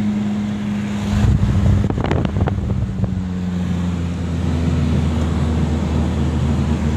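Engine and road noise heard from inside a moving car: a steady low hum. Between about one and three seconds in there is a louder rumble and a few knocks.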